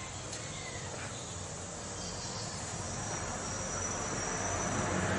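Background noise that slowly grows louder, with a faint, high, steady insect trill coming in about halfway through.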